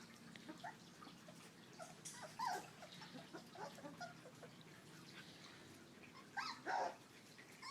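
Four-week-old puppies giving faint, short whimpers and yips as they scuffle, with two louder cries near the end.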